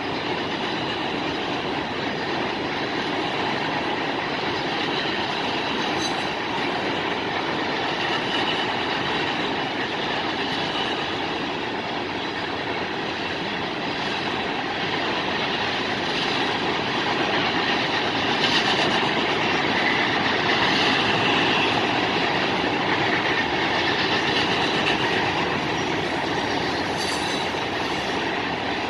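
Freight cars of a mixed freight train, hoppers and tank cars, rolling steadily past with a continuous rumble of wheels on rail. Faint high wheel squeal comes in about two-thirds of the way through.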